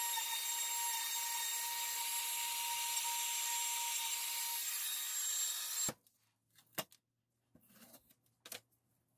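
Cordless compact router running and cutting a slot in a hardwood cutting board: a loud, steady high whine for about six seconds that cuts off abruptly, followed by a few light knocks.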